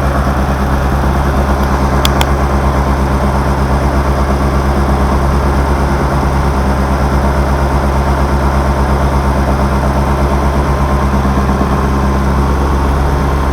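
Peugeot XU9J4 1.9-litre 16-valve four-cylinder engine idling steadily on its first runs after a full rebuild. Two faint clicks are heard about two seconds in.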